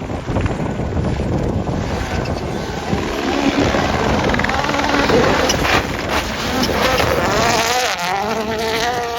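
A rally car approaching at speed and passing, its engine running hard and getting louder, with a few sharp cracks about halfway through. Near the end the engine note drops in pitch and fades as the car goes away.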